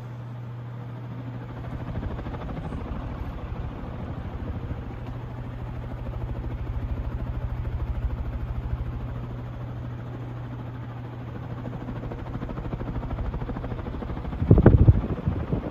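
Monte Carlo Studio 54-inch ceiling fan running on high speed: a steady motor hum under an even rush of moving air. A loud low thump comes near the end.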